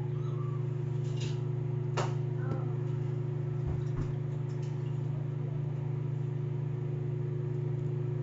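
A steady low hum, with a few light clicks about one and two seconds in.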